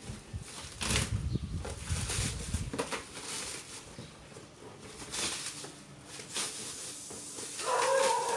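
Clear plastic packaging wrap crinkling and rustling as a cardboard box is pulled out of it. A brief, louder, call-like pitched sound comes near the end.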